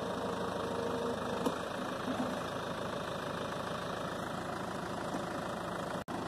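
Tractor engine running steadily at a low idle while it positions a grain auger; the sound cuts out for an instant near the end.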